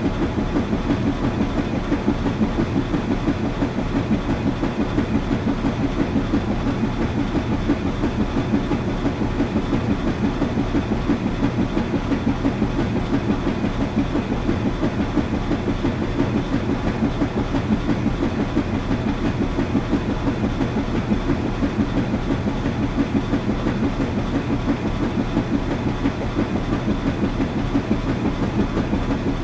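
Washing machine running: a steady low rumble with a fast, even pulsing.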